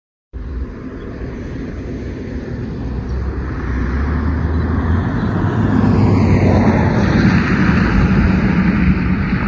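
Wind gusting over the microphone in front of a supercell's gust front: a rushing, rumbling noise that starts abruptly and strengthens over the first several seconds, then holds.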